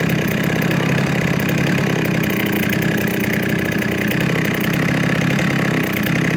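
Vintage Jonsered 49SP two-stroke chainsaw running steadily at high revs, holding its speed while cutting through a log.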